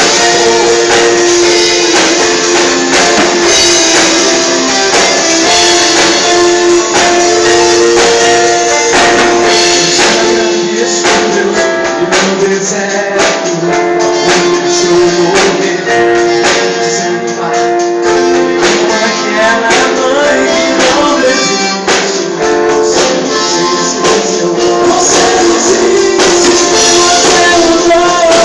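Band music with a tambourine playing the beat over sustained guitar and other instruments, in an instrumental stretch of a Portuguese-language gospel worship song.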